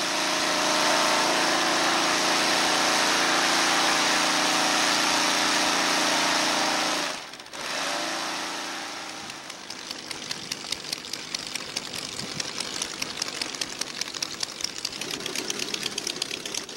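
A Formula V air racer's Volkswagen-based air-cooled engine comes up to a steady run. About seven seconds in it drops out sharply, and an engine carries on at idle with a rapid, even chugging.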